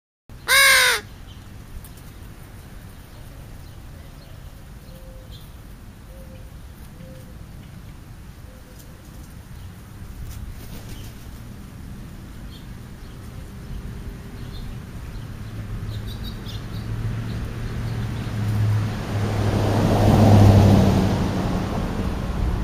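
A crow gives one loud, harsh caw about half a second in. Later a vehicle approaches and passes, its engine noise building to a peak near the end.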